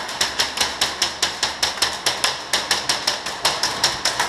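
Rapid airsoft fire: a steady string of sharp cracks at about six a second.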